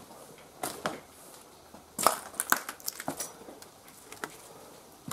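Footsteps crunching over scattered debris and litter: a handful of irregular crunches, the loudest cluster about two seconds in.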